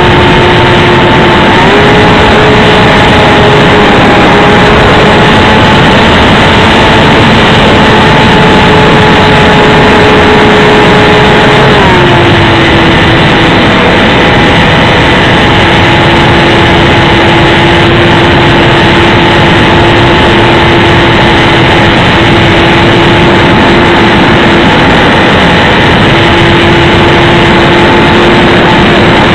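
Electric brushless motor and propeller of an XK DHC-2 A600 RC plane whining steadily in flight under loud wind rush, picked up by the onboard keychain camera. The pitch steps up about a second and a half in and drops back about twelve seconds in as the throttle changes.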